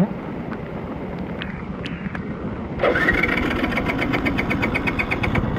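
Bajaj Pulsar motorcycle's electric starter cranking the engine: about three seconds in, a sudden rising whine with a fast, even churn of about nine strokes a second over a low rumble.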